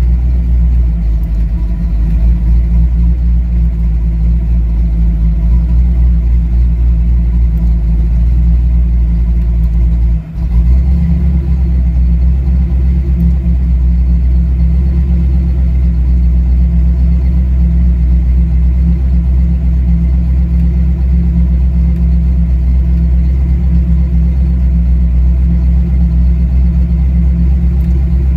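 Fuel-injected car engine idling steadily, heard from inside the cabin. About ten seconds in, the sound dips briefly and then settles into a slightly different note as the idle air control valve is stepped to a new position during an idle-valve sweep.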